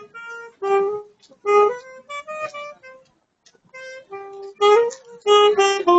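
A busker plays a woodwind melody of separate held notes, pausing briefly midway, then quickening near the end.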